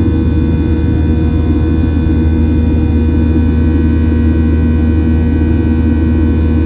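Cabin noise of a Boeing 737-800 in flight: its CFM56-7B jet engines and airflow making a steady loud drone with several steady tones above it.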